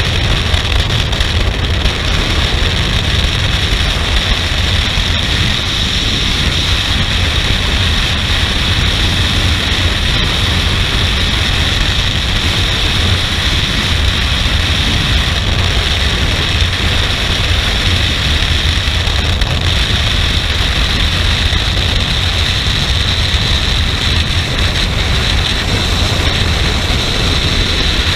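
Freefall wind rushing over a skydiver's camera microphone: a loud, steady deep rumble with a hiss above it.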